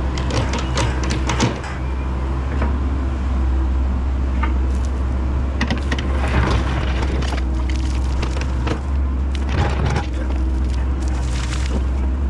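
Tracked excavator's diesel engine running steadily under load while it digs a trench. Scattered clanks and scrapes come from the bucket working stony soil.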